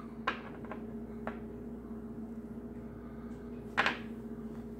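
Light clicks and taps of small model-kit parts being handled, then a brief louder clatter just before four seconds in as rubber model-car tires are set down on a wooden tabletop. A steady faint hum sits underneath.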